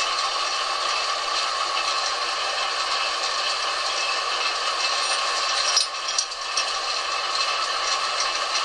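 Harrison metal lathe running steadily, its drive and gearing giving an even mechanical whir. About two-thirds of the way through there is a sharp click and a brief dip in the noise.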